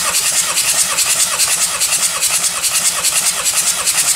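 Starter motor cranking a VW Transporter T5's 1.9-litre AXB turbodiesel during a compression test of the fourth cylinder, the engine turning over with an even pulse of about four beats a second. The cylinder builds 31 kg/cm² on the gauge.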